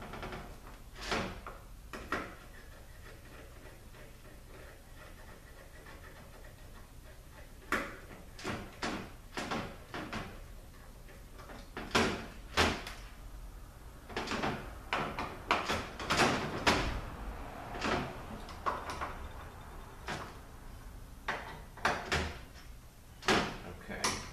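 Irregular clinks and knocks of metal parts and bolts being handled during assembly of an automatic transmission valve body. Two knocks come near the start, then a few seconds of quiet, then a busy run of knocks to the end.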